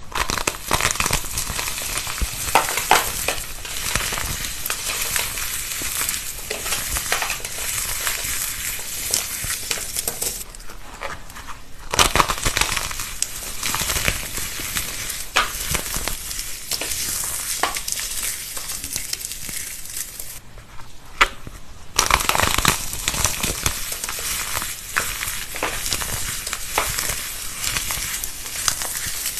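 Dense crunching and crackling of a brittle material being crushed, many small cracks close together, with abrupt changes in texture about ten, twelve, twenty and twenty-two seconds in as one clip gives way to the next.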